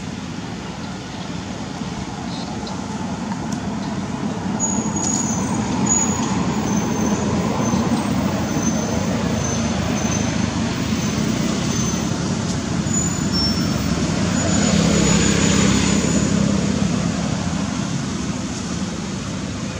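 Steady road-traffic noise with a low engine hum, building as a motor vehicle passes about fifteen seconds in, then fading. Faint short high peeps sound over it for a while.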